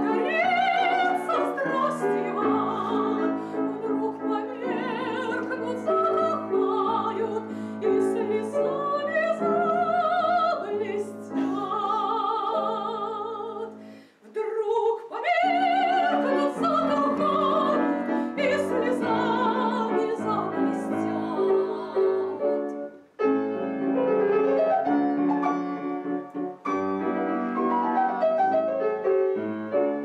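A woman singing in a trained classical voice with wide vibrato, accompanied by a grand piano. The music breaks off briefly about fourteen seconds in.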